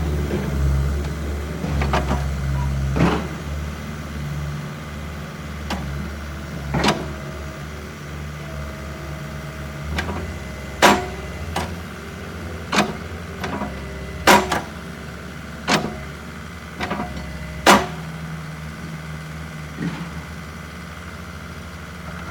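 Bobcat 435 compact excavator's diesel engine running steadily, louder for the first few seconds and then settling lower. A dozen or so sharp knocks are scattered over it, the loudest three in the second half.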